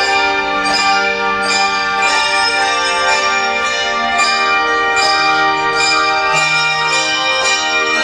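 A massed handbell choir ringing a piece in unison: new chords struck a little more often than once a second, each bell tone ringing on and overlapping the next.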